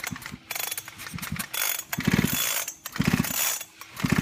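Recoil starter of a Titan Power petrol chainsaw pulled about five times, roughly once a second, the engine turning over with a quick rattling whirr on each pull. The spark plug is out, so the engine spins freely without firing; this is done to clear a chainsaw that won't start.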